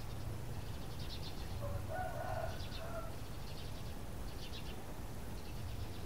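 Greater coucal giving one short call about two seconds in, over high chirps of small birds repeating roughly once a second and a steady low hum.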